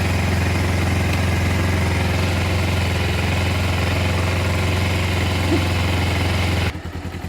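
Motorcycle engine idling steadily. Near the end it drops suddenly to a quieter, pulsing beat.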